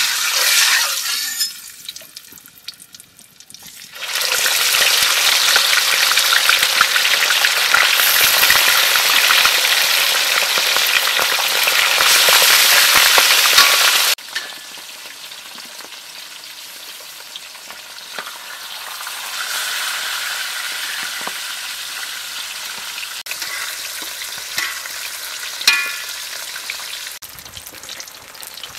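Fish pieces frying in hot oil in a metal wok: a loud sizzle starts about four seconds in and stops abruptly partway through, giving way to a softer, steady frying hiss. A few clinks of the metal spatula against the wok come near the end.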